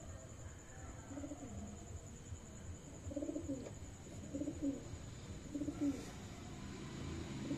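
Racing pigeon cooing: a series of low coos, repeated about once a second.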